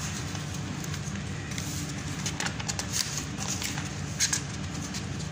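Sheets of a multi-part paper form rustling as they are lifted and handled, a few short rustles over a steady low machinery hum.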